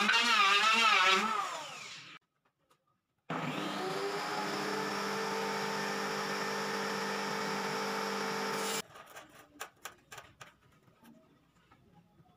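An electric power tool runs with a wavering whine that fades out within the first two seconds. After a short gap a second power-tool motor spins up, runs steadily for about five seconds and cuts off suddenly, followed by a few light knocks.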